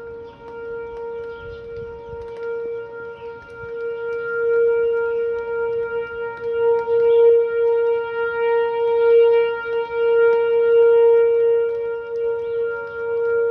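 Whelen WPS-4004 electronic outdoor warning siren sounding a steady alert tone: one held pitch with overtones, with no rise or fall in pitch. It grows louder about four seconds in, then swells and fades every couple of seconds.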